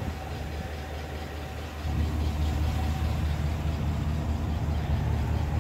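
Chevrolet Silverado 2500HD's 6.0-litre V8 idling steadily, getting louder about two seconds in.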